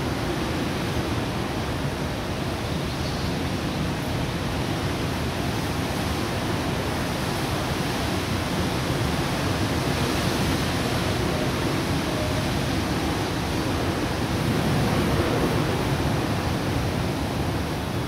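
Strong wind blowing as a steady deep rush, swelling slightly a couple of times.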